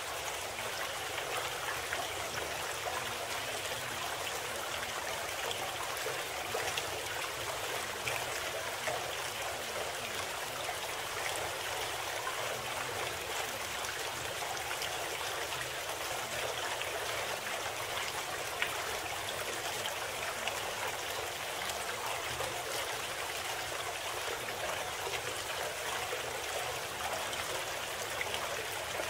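Steady, unbroken running-water sound like a babbling stream, serving as the masking bed of a subliminal audio program.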